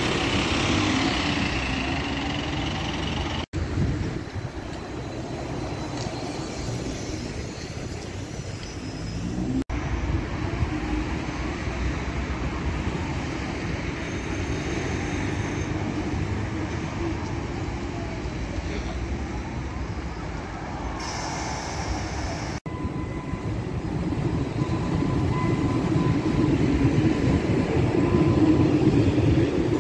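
A run of city transport vehicles passing in turn: a Euro Bus Diamond city bus pulling away, then two Solaris Trollino 12S trolleybuses going by with a faint rising and falling electric whine, then a Tatra KT4D tram rolling along its rails, loudest as it passes close near the end.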